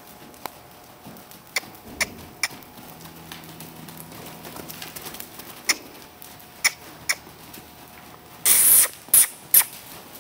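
Scattered sharp taps and knocks as loose quarter horse foals move over the arena footing, a few at a time. A short loud rushing burst comes about eight and a half seconds in, followed by two brief ones.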